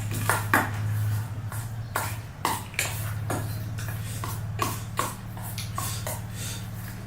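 Crisp pani puri shells being bitten and chewed close to the microphone: a string of irregular sharp crunches and crackles, over a steady low hum.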